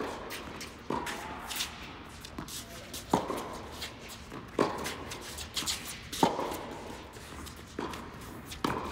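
Tennis ball struck back and forth by rackets during a doubles rally on an indoor hard court, with sharp pops of racket on ball and ball bouncing on the court every second or so, echoing in the large hall. Players' shoes shuffle between shots.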